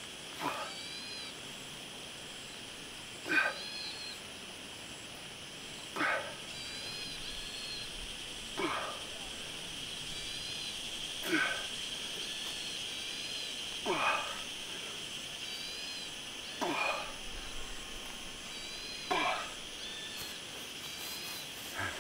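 A man's hard exhale with each squat while he carries a person on his shoulders. There are about nine short breaths evenly spaced, each falling in pitch.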